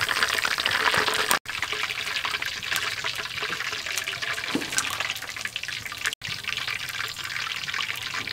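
Hot cooking oil sizzling and crackling in a wok as fried shallots and garlic are scooped out with a wire strainer. It is loudest in the first second or so, then goes on quieter, and cuts out briefly twice.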